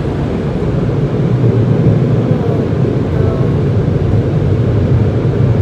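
Automatic car wash machinery heard from inside the car's cabin: a steady low rumble that grows a little louder about a second in.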